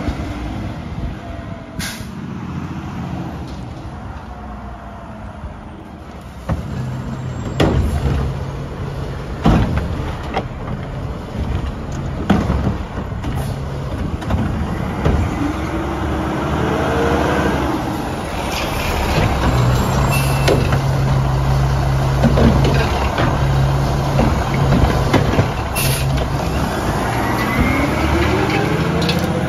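Mack LR garbage truck working a cart route: its diesel engine runs up under load as the automated arm works, with rising whines. Several sharp bangs and air-brake hisses come through the run.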